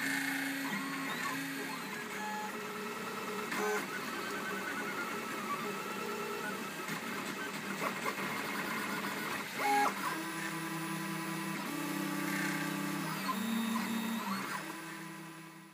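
MendelMax 3D printer running a print, its stepper motors whining in steady tones that keep jumping and gliding in pitch as the print head and bed move, with a few short clicks. The sound fades out at the end.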